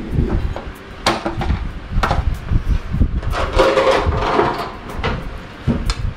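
Dishes and cooking utensils knocking and clinking in a kitchen: a few separate sharp knocks, then a longer clatter around the middle.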